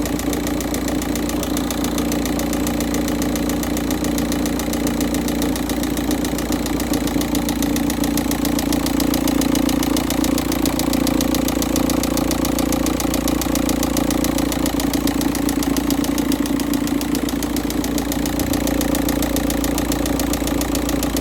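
Volkswagen Touran's 1.9 TDI four-cylinder turbodiesel idling just after a cold start, its oil still cold and thick, with a strong banging or knocking from inside the engine over the steady diesel running.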